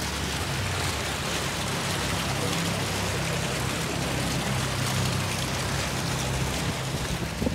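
Fountain jets gushing up and splashing back into a pond, a steady rushing of water, with a low hum underneath.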